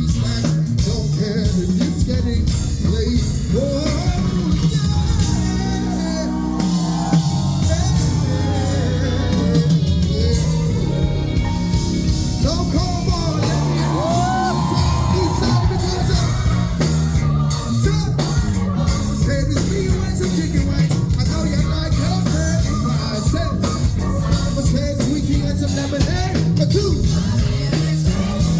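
Live soul-pop band playing, with a lead singer's vocal runs over a steady bass and drum groove.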